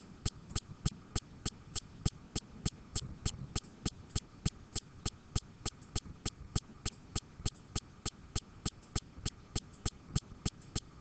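Steady, evenly spaced clicking, about three sharp clicks a second, over a faint low rumble.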